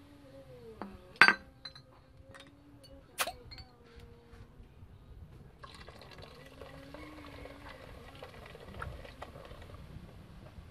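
Two sharp glass clinks from a Pepsi bottle, about one and three seconds in, then cola poured in a steady stream into an aluminium pot of liquid from about halfway through.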